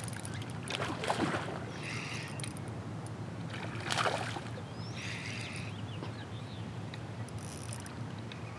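A hooked smallmouth bass splashing and thrashing at the water's surface while being fought on a rod, in several short bursts with the strongest splash about four seconds in, over a steady background of water noise.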